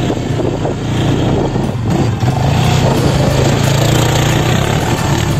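Sport quad bike (ATV) engine running as it is ridden on soft sand, the rear wheels digging in. The engine note is steady and grows a little louder about two seconds in.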